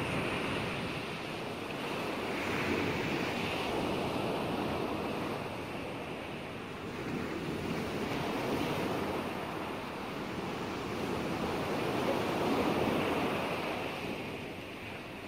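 Ocean surf, a steady rushing noise of waves that swells and ebbs gently every few seconds.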